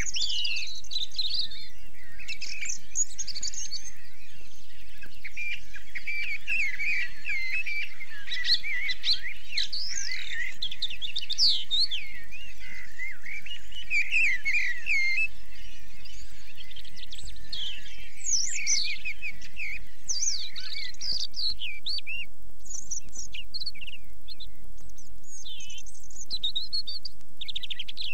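Recorded birdsong from a bird-sound LP: quick chirping and warbling notes, overlapping and dense for most of the time, thinning to scattered short chirps near the end.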